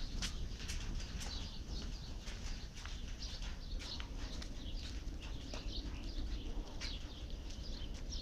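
Light rain: scattered drops ticking irregularly, with birds chirping now and then and a low wind rumble on the microphone.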